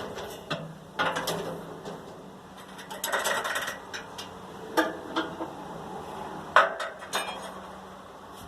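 Metal tools and steel parts being handled: scattered sharp clinks and knocks, with a denser stretch of clatter about three seconds in.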